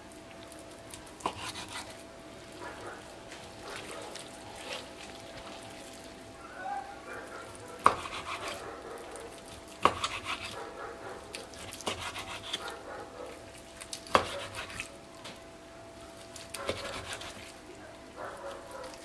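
Kitchen knife slicing boiled beef tongue on a wooden cutting board: soft cutting strokes, with a few sharp taps of the blade on the board. A faint steady hum runs underneath.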